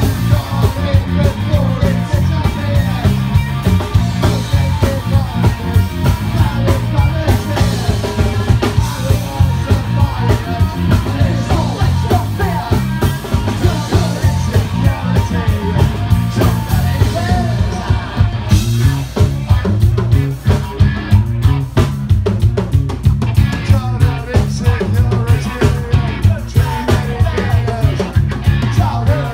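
Live ska punk band playing: drum kit with a steady driving beat, electric guitars and bass, and a singer's vocals.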